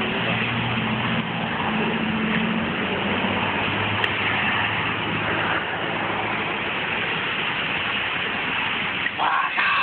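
A vehicle engine idling, a low steady hum that fades away about halfway through, over a steady rushing noise.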